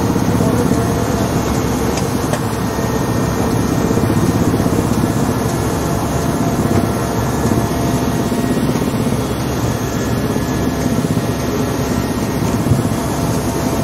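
Helicopter engine and rotor noise heard from inside the cabin in flight, loud and steady.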